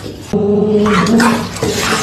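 Raspy animal growling and snarling from a cat-and-puppy face-off, starting again about a third of a second in after a short break.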